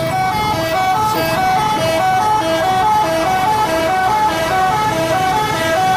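Bus 'telolet' musical horn playing a quick repeating tune of short notes that step up and down in pitch.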